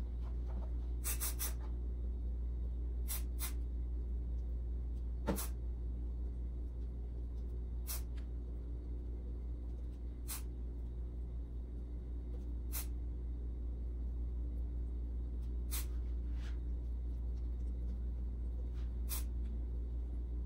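A steady low hum with about ten scattered light ticks, the sharpest about five seconds in, as a silicone brush dabs wet epoxy onto a tile.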